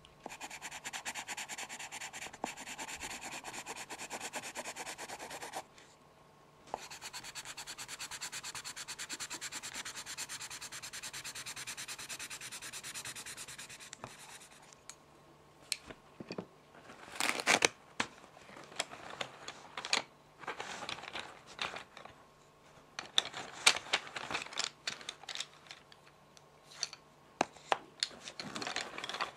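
A pencil scratching steadily in two long spells, the second starting about a second after the first stops. From about halfway through come irregular sharp taps, clicks and short scratches, as of pencils being handled and tapped.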